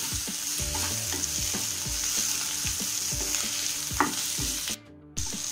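Mixed vegetables sizzling in oil in a non-stick pan as a wooden spatula stirs and scrapes them in repeated strokes, sautéing with ginger-garlic paste. There is a sharper scrape about four seconds in, and the sizzle breaks off briefly near the end.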